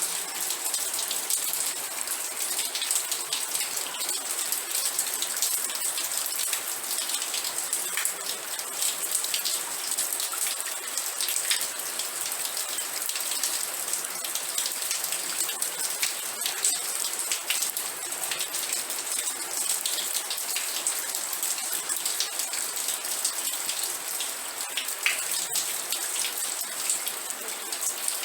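Steady rain falling, with many individual drops striking a surface as short ticks over an even hiss.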